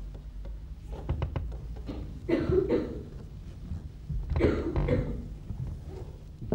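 Two short coughs about two seconds apart over a quiet stage, with faint knocks of performers stepping on the boards.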